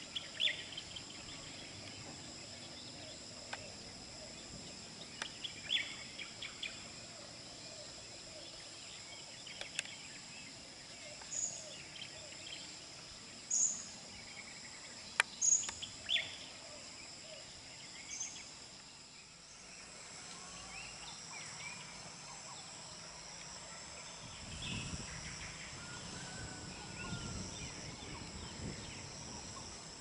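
Wild birds singing on a forested mountain slope: scattered short chirps and brief high calls from several birds, over a steady high-pitched insect drone.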